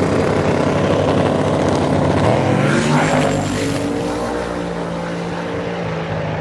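Pickup trucks at full throttle on a drag strip. About three seconds in, the engine note sweeps up and then falls away as a truck passes, before settling into a steadier, slightly quieter drone.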